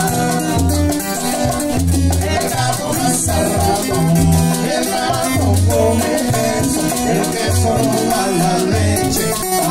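Cuban guaracha played live: an acoustic guitar strumming and maracas shaking in rhythm over a deep bass line.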